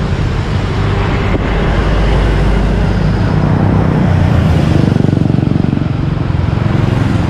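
Highway traffic passing close by: car and truck engines with tyre noise. It builds to its loudest pass about two-thirds of the way through, then eases.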